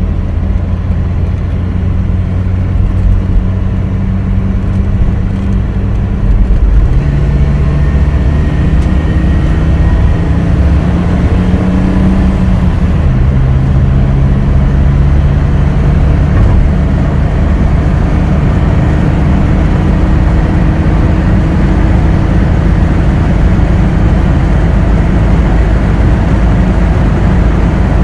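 1964 Mercedes-Benz 220SEb Coupe's fuel-injected straight-six running while the car is driven. The engine note gets louder about six and a half seconds in, climbs, then drops at a gear change about thirteen seconds in.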